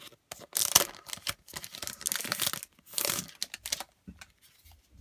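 Thin plastic wrapping rustling and crinkling as a new tablet is handled out of it, in three or four noisy bursts that stop about four seconds in.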